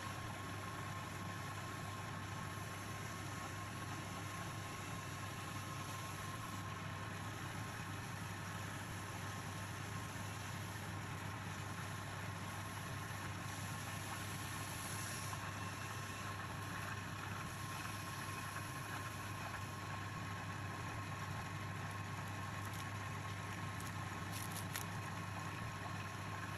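Wood lathe running steadily with a turned wooden spindle spinning on it: a constant low hum with a thin steady whine above it, with a few faint ticks near the end.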